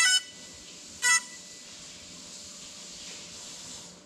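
Two short beeps about a second apart, the first longer, from the crashed FPV drone lying on the floor, over a steady hiss that cuts off near the end.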